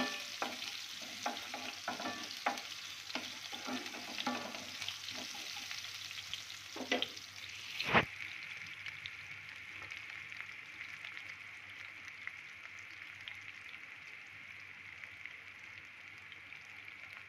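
Sliced onions sizzling in hot mustard oil in a nonstick kadai, with a wooden spatula scraping and knocking against the pan during the first several seconds and one sharp knock about eight seconds in. After that, a steady, quieter sizzle.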